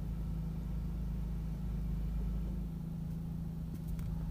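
Car engine idling, heard from inside the cabin as a steady low hum, with a few faint clicks about three to four seconds in.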